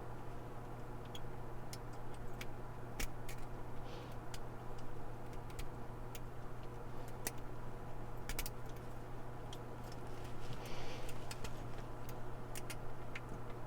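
Lock pick and tension tool clicking inside a laminated steel padlock as the pins are worked, a sparse, irregular series of small sharp ticks over a steady low hum.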